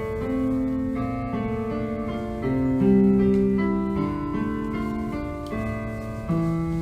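Piano or electric keyboard music: held notes and chords moving slowly, swelling a little about halfway through.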